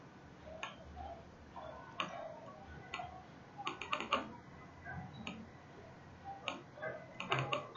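Faint, scattered clicks of a computer mouse and keyboard, single clicks and quick runs of three or four at a time.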